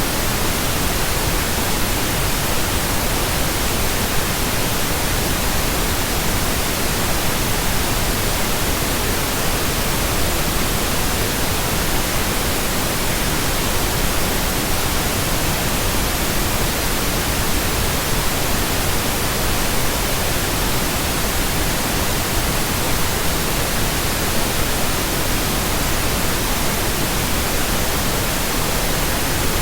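Steady synthetic pink noise: an even, unbroken hiss across the whole range, with no tones or changes.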